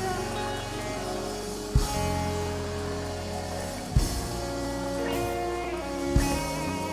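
Instrumental worship band music with no voice: guitar and sustained chords over a steady bass, marked by three loud beats about two seconds apart.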